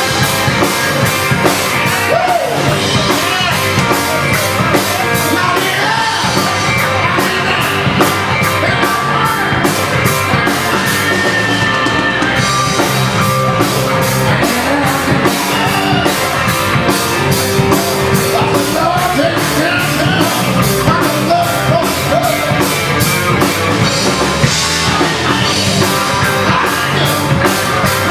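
Live rock band playing: electric guitars and electric bass over a drum kit, with cymbals keeping a steady, even beat throughout.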